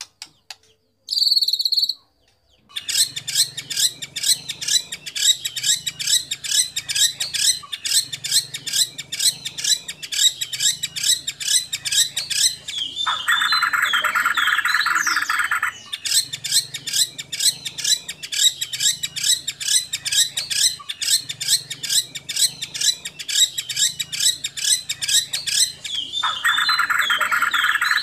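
White-rumped shama (murai batu) song from a stimulation track. A long run of rapid, sharp high notes, about five a second, starts after a short break near the beginning and is twice replaced for two to three seconds by a steady buzzy held note.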